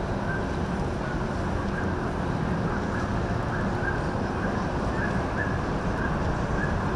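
Steady low rumble of a motor cruiser's engines idling past on the water, mixed with wind noise on the microphone.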